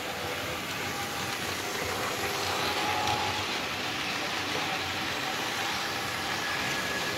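Model passenger train, a diesel locomotive with red coaches, running past on the layout's track: a steady rolling rumble of wheels on rail and motor hum, loudest about three seconds in as the coaches pass closest.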